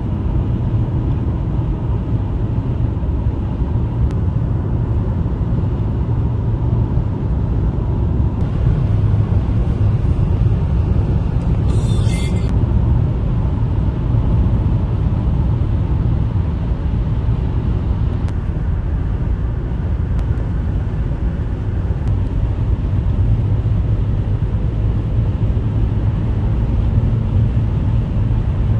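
A car driving on the road: steady rumble of engine and tyres, with a brief high-pitched sound about twelve seconds in.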